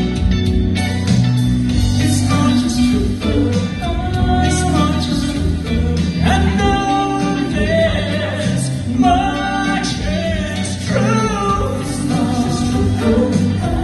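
Male vocal trio singing a pop ballad live through a PA, over a recorded backing track with bass and a steady beat.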